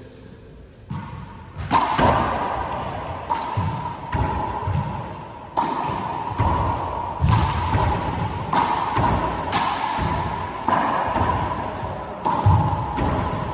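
A handball rally in a four-wall court: the small rubber ball is slapped by hand and smacks off the walls and floor, a sharp impact about every second, each echoing in the enclosed court.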